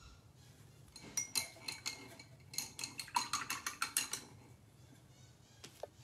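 A paintbrush clinking against a glass rinse jar: a run of quick ringing taps, about six a second at their fastest, starting about a second in and stopping about four seconds in.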